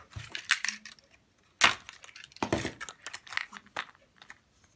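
A clear plastic bag and a small cardboard box handled during unboxing: crinkling rustles and a run of sharp clicks and knocks, the loudest about a second and a half in.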